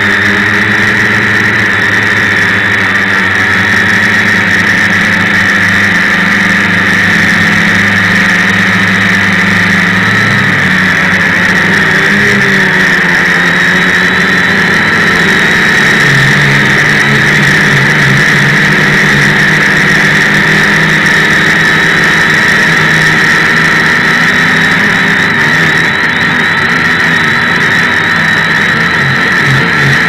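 Multirotor drone's electric motors and propellers running, heard close from the drone's own onboard camera: a loud, steady high hum, with lower tones that shift in pitch a few times as the motor speed changes.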